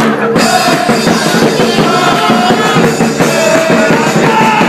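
Football supporters singing a chant over beating drums, loud and continuous.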